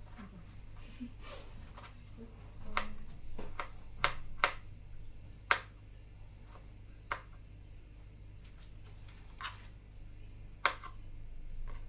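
Kitchen utensils knocking and clicking against dishes or a board: about half a dozen irregular sharp knocks, with a steady low hum underneath.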